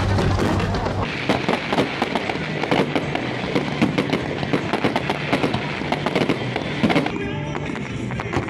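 Fireworks crackling overhead in a dense, rapid string of sharp pops that starts about a second in and stops about seven seconds in, with show music playing underneath.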